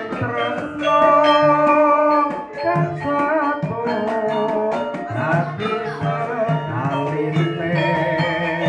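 Javanese gamelan music: struck metal-keyed instruments and drum under a boy's lead vocal sung into a microphone, with girls' voices joining.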